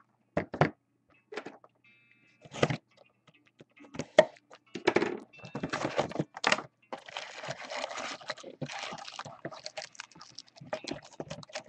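Hands handling and opening a cardboard trading-card box: scattered taps and knocks, then a few seconds of plastic wrapping rustling and crinkling from about seven seconds in.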